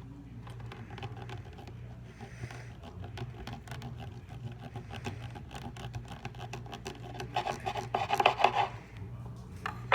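A knife sawing and scraping into a silicone bead of a Lokai bracelet, a dense run of quick scratchy strokes that gets louder about eight seconds in.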